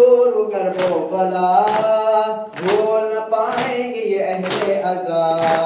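A group of male voices chanting a noha, a Shia lament for Muharram. It is punctuated by steady slaps about once a second, the rhythm of matam, hands beating on chests.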